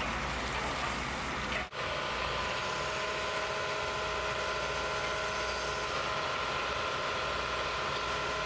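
Heavy machinery engines running steadily, first a John Deere backhoe working ballast. After a sudden break about two seconds in, a tracked rail-mounted excavator with a saw head runs with a steady whine of several held tones over its engine.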